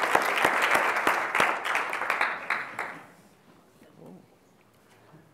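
Audience applauding: dense clapping that thins out and dies away about three seconds in, leaving the room nearly quiet.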